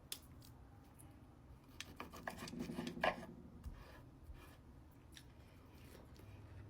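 Quiet eating sounds over a plate of steak: scattered clicks and scrapes of cutlery and chewing. They are busiest two to three seconds in, with one sharper click about three seconds in.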